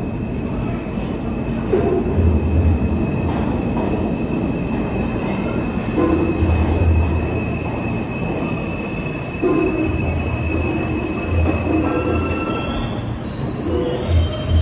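New York City subway train running with a low rumble that swells every few seconds and a steady high-pitched wheel squeal. Further higher squeals join near the end.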